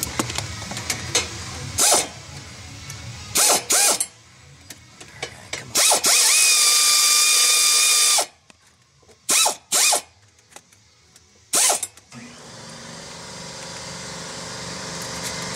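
Pneumatic air ratchet loosening a small bolt on the EGR cooler. It runs in several short bursts and one longer, steady whirring run of about two seconds in the middle.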